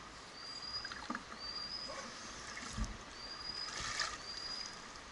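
A few hollow knocks and splashes from the canoe and its paddles in the water, the loudest about three seconds in and again a second later. Behind them, a small bird repeats a short, high, slightly rising note about once a second.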